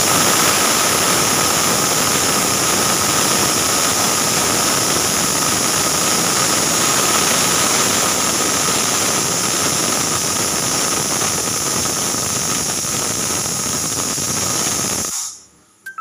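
Pressure cooker whistle going off: the weighted valve on the lid lifts and vents steam in a loud, steady hiss with a thin whistle tone, a sign the cooker has reached full pressure. It cuts off sharply about fifteen seconds in.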